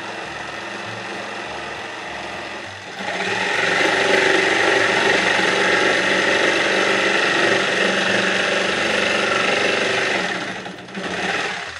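Electric jigsaw running and cutting through a wooden board. It gets louder about three seconds in as the blade works through the cut, then drops away near the end.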